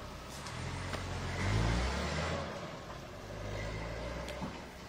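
Taxi's car engine pulling away: it revs up and grows louder about a second and a half in, then runs on more evenly and fades out near the end.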